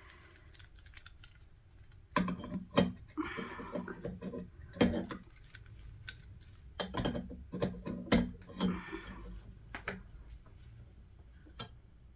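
Small metal tools and parts clinking and knocking as they are handled, in irregular clatters with clusters about two seconds in and again around seven to nine seconds.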